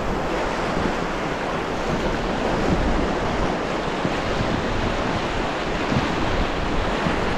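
Whitewater of the Main Payette River at about 7,200 cfs rushing around a raft, a steady even wash of water noise, with wind buffeting the microphone.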